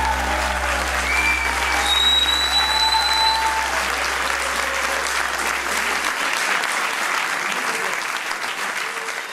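Audience applauding and cheering at the end of a live song, with a few high whistles about one to three seconds in. A low held note from the band rings under it and stops about six seconds in, and the applause fades near the end.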